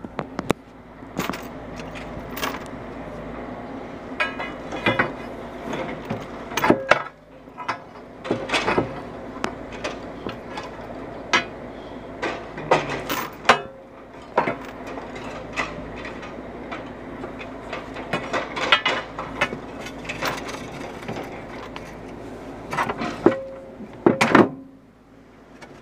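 Irregular metal clanks and knocks from heavy repair work, a few dozen spread across the stretch, over a steady engine hum.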